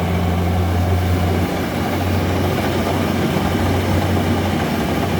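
Kubota rice combine harvester's diesel engine running steadily, with a strong low hum that weakens about a second and a half in, over a constant mechanical din.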